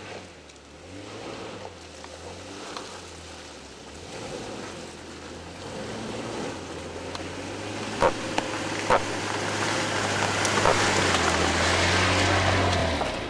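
Jeep Wrangler driving slowly along a dirt trail, its engine running at low revs and growing steadily louder as it approaches and passes close by. A few sharp cracks sound about eight and nine seconds in.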